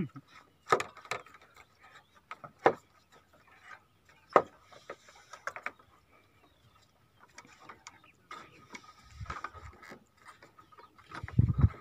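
Bamboo footbridge creaking and knocking under footsteps: sharp cracks from the lashed bamboo poles every second or two, with a faint creak between them. A low rumble near the end.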